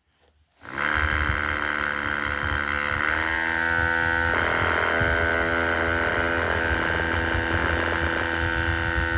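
Small electric motor of a handmade model helicopter spinning its wooden rotor blades. It starts suddenly under a second in and rises in pitch for about two seconds as it spins up. It then runs steadily with a buzzing whine.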